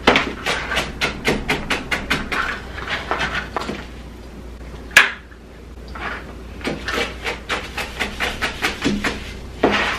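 Chef's knife chopping jalapeno on a plastic cutting mat: quick runs of knife strokes, about five a second, that pause midway, with a single sharper knock about halfway through before the chopping resumes.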